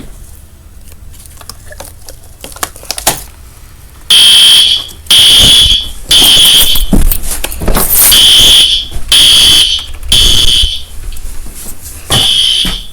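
A fire alarm sounder goes off after a few faint clicks, about four seconds in. It sends out a loud, high tone in groups of three pulses with a pause between groups, the temporal-three evacuation pattern.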